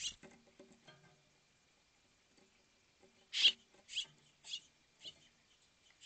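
Birds at a hanging seed feeder making a run of short, scratchy sounds, about five in all, the loudest about three and a half seconds in. A faint, steady high tone lies under them.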